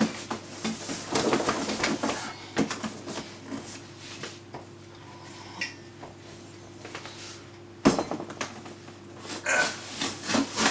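Metallic clinks and knocks from a large ornate metal sword being handled and swung, with a cluster of taps near the end as the blade meets a cardboard box. A faint steady hum underneath.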